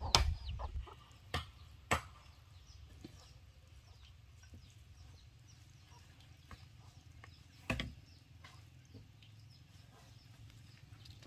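Bamboo being chopped: a cluster of sharp knocks in the first two seconds, the first the loudest, and one more knock about three-quarters of the way through. Chickens cluck faintly in between.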